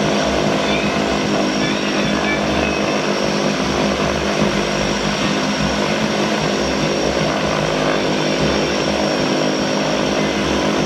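Beechcraft King Air C90A's twin Pratt & Whitney PT6A turboprop engines running at low power for taxi: a steady propeller drone with a thin, even turbine whine high above it.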